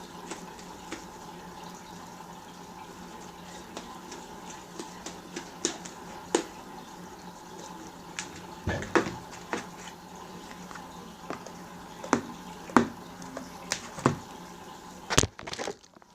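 Scattered wet, sticky clicks and squishes at irregular intervals, over a steady low hum. Near the end the sound cuts off abruptly.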